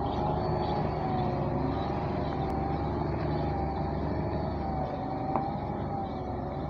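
Heavy diesel engine of a loaded ten-wheeler truck running steadily, with a high wavering tone above it. The low drone eases slightly about five seconds in.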